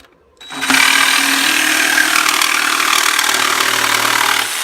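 Porter-Cable 20-volt cordless jigsaw cutting thin plywood backer board: the blade sawing through the wood over a steady motor tone. It starts about half a second in and stops abruptly near the end.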